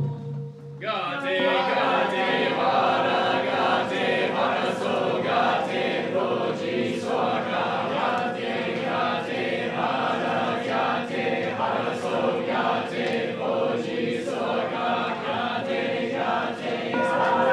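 A congregation chanting a sutra together, many voices held on a steady monotone. The chanting starts about a second in.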